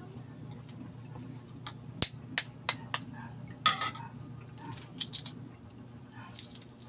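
Four sharp clinks and taps in quick succession, then the dry crackle of a balut eggshell being cracked and picked off by hand, with fainter crackles later on.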